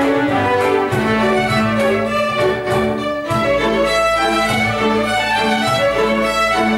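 String orchestra of violins, violas, cellos and double bass playing a lively hornpipe: quick bowed melody notes over long held low notes and a pulsing bass line.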